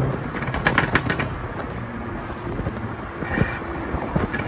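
Abarth 124 Spider's 1.4-litre turbo four-cylinder through an open-valved Monza exhaust and 200-cell sports cat, tuned for pops and bangs, pulling away: a quick run of sharp exhaust pops and crackles about a second in, then the car's sound fading into a steady rush.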